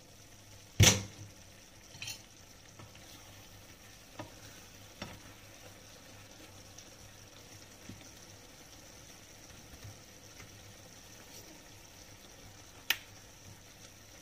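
Kitchen utensils knocking: a loud sharp clack about a second in as a utensil is taken up off a ceramic plate, a few lighter knocks as the spatula works in the frying pan, and one more sharp clack near the end. Under them runs a faint steady hiss from the simmering pan.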